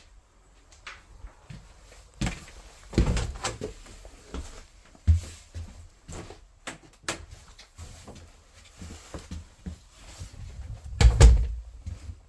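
Scattered knocks and thumps inside a trailer's small interior, like handling of doors or cabinets and footsteps. The loudest come about three seconds in and about eleven seconds in.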